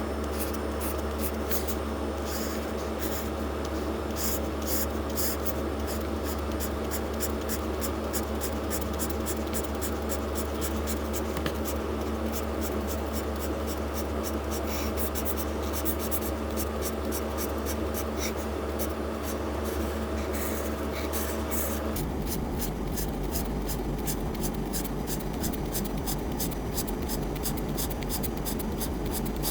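Rapid back-and-forth coloring strokes scratching across paper, over a steady low hum.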